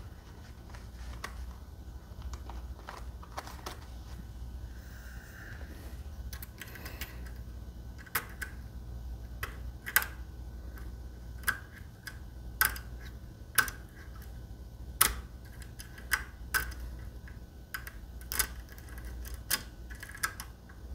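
Small, irregular metallic clicks and ticks of a thin lock pick and tension wrench working the pins of a Medeco lock cylinder. The clicks are sparse at first and come sharper and more often, about one a second, in the second half.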